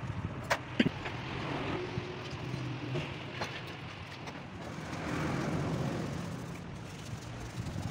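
Steady rumble of passing street traffic, with a couple of sharp metal clicks in the first second as main bearing shells are seated in the engine block's saddles.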